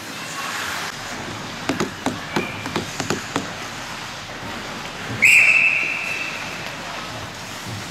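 Referee's whistle: one sharp blast a little past the middle, fading over about a second. A quick run of sharp knocks comes a couple of seconds before it.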